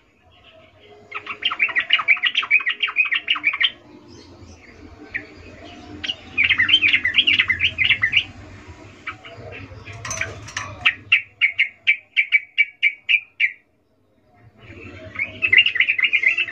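Sooty-headed bulbul (trucukan) calling: bursts of rapid, chattering chirps, then a run of separate chirps about four a second, with short pauses between bursts. This is the female's excited 'ngecuplik' call, used as a lure to set males singing.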